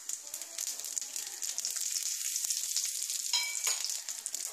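Whole cumin seeds, radhuni and a bay leaf sizzling with fine crackling in a teaspoon of hot oil in a kadai: the tempering (phoron) frying.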